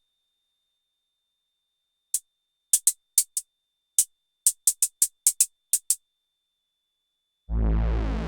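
Sequential Prophet-6 analogue synthesizer playing short, bright, hi-hat-like noise hits in an uneven rhythm, about a dozen of them, after a couple of seconds of silence. About seven and a half seconds in, a loud, full synth sound with a deep bass comes in.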